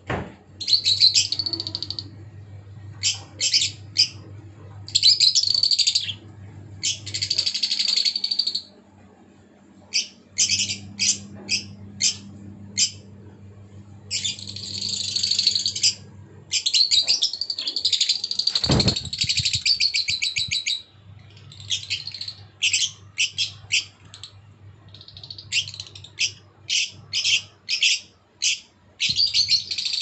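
A flock of lovebirds chirping in quick runs of short, high-pitched calls, thickening into a dense chatter about halfway through. A low steady hum comes and goes underneath.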